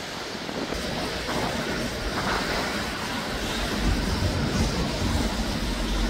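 Road traffic passing, with a deep low rumble from a heavy vehicle building up in the second half.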